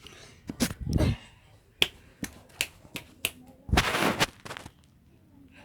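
A string of sharp, irregularly spaced clicks and knocks, about eight in three seconds, then a longer rustling scrape about four seconds in.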